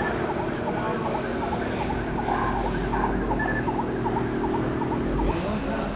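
An electronic siren giving quick repeating yelps, several a second, over a steady humming tone that cuts off about five seconds in.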